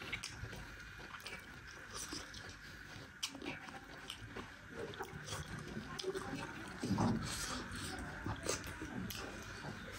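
Close-up eating sounds: chewing, with many small scattered clicks as fingers pick food off a metal plate.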